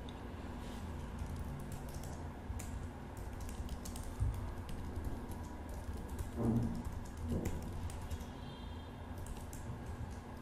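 Computer keyboard being typed on in irregular runs of key clicks, over a low steady hum, with two brief low sounds about four and six and a half seconds in.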